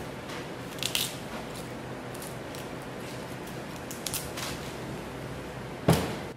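Butcher's knife cutting and scraping raw beef off the rib bones while the meat is trimmed by hand, with short scraping cuts about a second in and again around four seconds in over a steady room hum. A single loud knock comes near the end.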